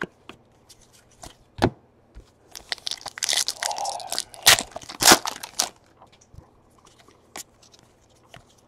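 Foil wrapper of a trading-card pack crinkling and tearing as it is ripped open, from about two and a half seconds in to nearly six, with a few sharp snaps. Before and after it, light clicks and taps of cards being handled.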